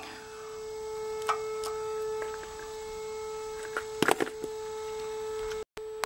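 Outdoor tornado warning siren sounding one steady tone, with a few light clicks about a second in and a short cluster of taps around four seconds in. The sound drops out briefly near the end.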